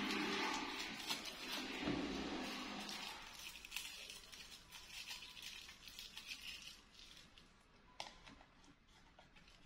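Milk pouring from a small carton into a ceramic bowl for the first three seconds or so, then faint clicks and rustles as the carton and its straw are handled, dying away.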